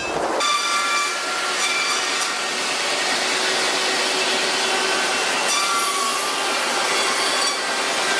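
Steam-powered sawmill's big circular ripsaw (head saw) running at the log carriage: a steady, loud mechanical din with a faint whine from the spinning blade.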